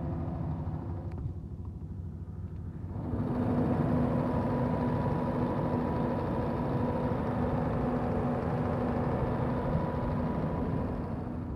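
Scania DSC 11 six-cylinder diesel engine of a 250 kVA generator set running steadily at a constant speed. It is muffled at first, then louder and fuller from about three seconds in, when it is heard through the open engine-bay door.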